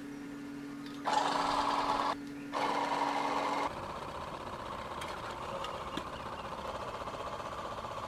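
Two loud bursts of noise of about a second each, then a small electric motor, the fan of a homemade can cooler, running steadily with a fast rattle.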